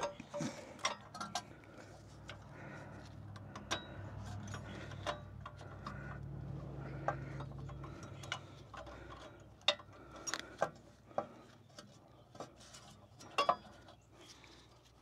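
Irregular light metallic clicks and taps from Land Rover LR4 rear parking-brake shoes and their return springs being handled and worked into place on the hub. A faint low hum swells and fades in the background through the middle.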